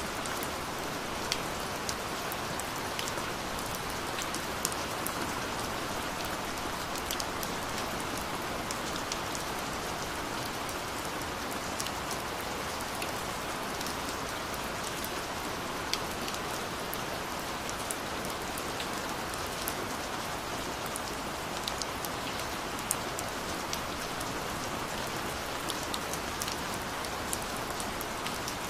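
Gentle rain falling steadily, an even hiss with scattered sharp ticks of single drops striking a surface.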